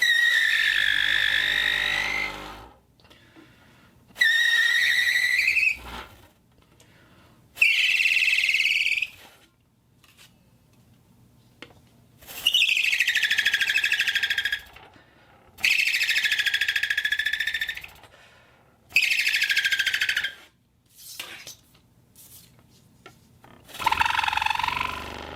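A homemade whistle made from a glass bottle and a metal plate, blown in about seven separate shrill blasts of one to two and a half seconds each. The pitch wavers and bends within the blasts, and the last one is lower.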